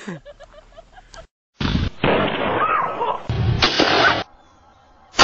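Two loud shotgun blasts, starting suddenly about 1.6 and 3.3 seconds in, each followed by about a second of loud noise, with a short cry from a voice in between.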